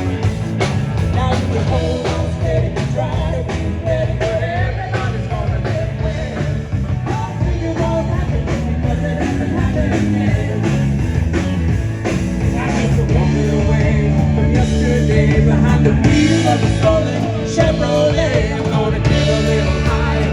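Live rock band playing a song: a singer over electric guitar, bass and drum kit.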